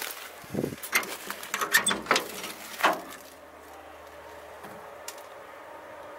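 Dry brush crackling underfoot and a few sharp knocks and clicks as a person moves up to an old truck's cab, over about three seconds. After that there is only a faint steady background.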